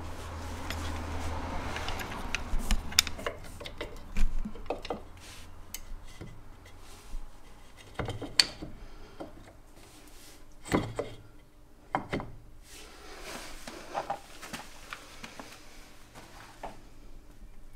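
Metal clinks, knocks and scrapes of VW Beetle rear drum brake shoes and their springs being handled and fitted onto the steel backing plate, a scattered run of sharp clicks with some rubbing in between.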